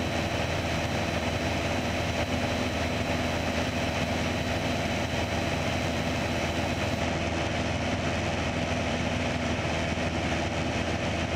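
Steady drone of a Piper PA-28 Archer's four-cylinder Lycoming engine and propeller at constant cruise power, heard inside the cabin.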